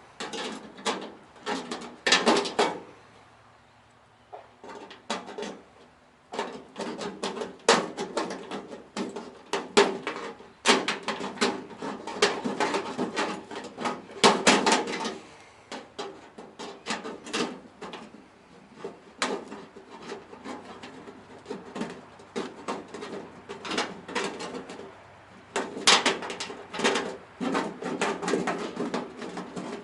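Hand tin opener being worked around thin sheet metal, cutting out a round hole: runs of rapid clicking and scraping, broken by short pauses.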